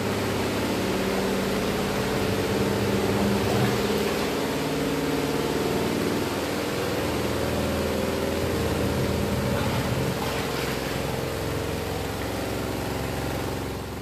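Sansui JSD70S-2020L 7 kg semi-automatic twin-tub washing machine running: a steady motor hum over a rushing noise.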